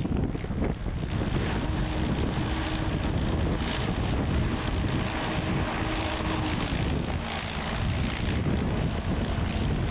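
Wind buffeting the microphone over the steady drone of a tractor engine pulling a plow through a field. The engine's tone holds steady, then drops slightly about seven seconds in.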